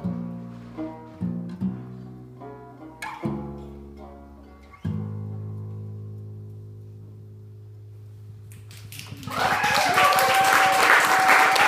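Open-back banjo and bass guitar playing the last plucked phrases of a song, ending about five seconds in on a final note whose low bass tone rings out and slowly fades. About nine seconds in, an audience breaks into loud applause, with a held whistle through it.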